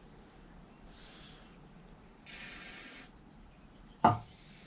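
An aerosol can of water-displacing gun-cleaning solvent hissing in one short spray burst of under a second, sprayed into a rifle bore. About four seconds in comes a single sharp knock, the loudest sound.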